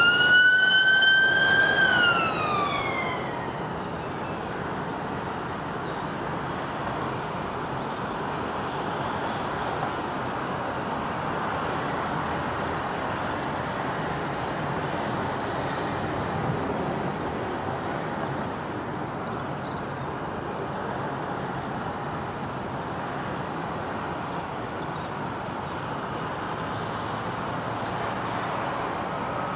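Emergency vehicle siren wailing, its pitch sweeping up, holding, then falling away and dying out about three seconds in. After that, steady road traffic noise.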